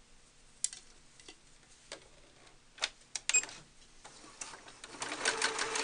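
A few faint clicks and taps while the pinned fabric is set under the presser foot of a computerised sewing machine, then about five seconds in the machine starts stitching with a rapid, even rhythm, basting a seam close to the edge.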